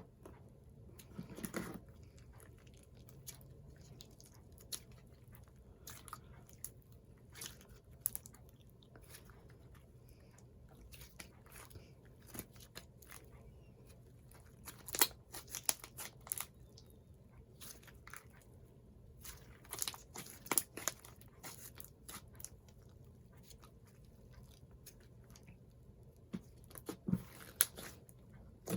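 Soft clay-mixed slime being kneaded, squished and stretched by hand, giving scattered small sticky clicks and pops, a little louder about halfway through.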